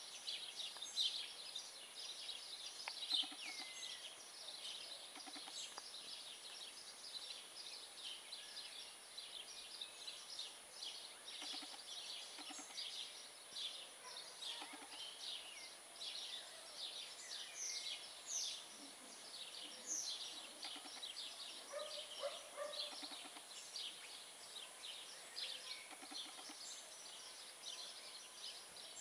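Background chorus of many small birds chirping, a dense run of short high-pitched calls overlapping one another, with a thin steady high tone underneath.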